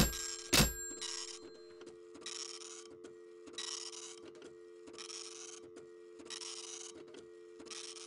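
Two sharp clicks about half a second apart as the phone call is hung up, then a faint rasping sound repeating about every second and a quarter over a steady low hum on the line.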